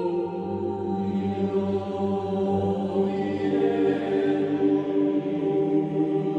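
Slow background music of held, chant-like choir voices over a low drone, the chord shifting a couple of times.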